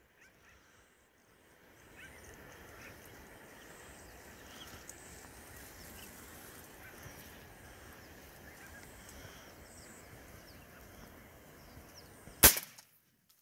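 Faint open-marsh ambience with scattered distant waterbird calls, broken about twelve seconds in by one sharp click.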